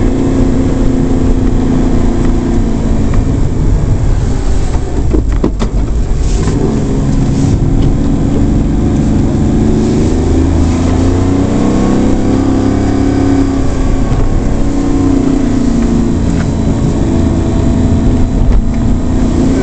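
Suzuki Carry kei truck's small three-cylinder engine heard from inside the cab while driving, its revs rising and falling through the bends, with a short break in the engine note about five seconds in.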